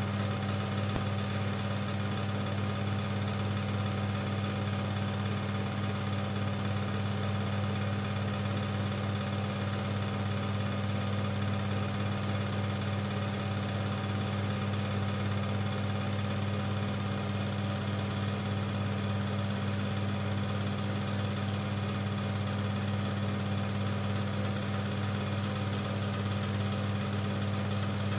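Super 8 film projector running: a steady, unchanging mechanical hum.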